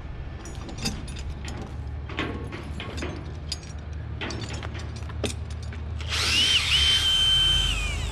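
Cordless drill spinning up about six seconds in, running at a steady high whine for about two seconds, then winding down, after a run of light knocks and clicks of tools on the logs. A low engine hum runs underneath.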